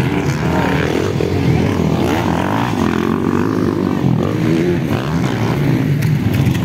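Motocross dirt bike engines racing on the track, revving up and down as the riders work through the jumps.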